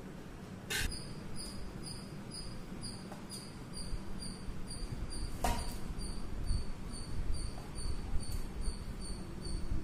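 Insect chirping: a short high note repeated steadily, nearly three times a second, starting about a second in. Two sharp knocks, one about a second in and one halfway through.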